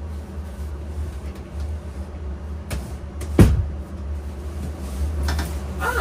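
Steady low hum inside a small wood-panelled room, with a couple of light clicks and one sharp, dull thump about three and a half seconds in.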